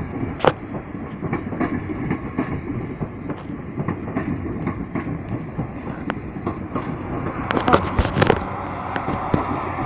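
Class 444 electric multiple unit running past on the rails, a steady rumble broken by wheel clicks over rail joints, with a burst of louder clacks about eight seconds in.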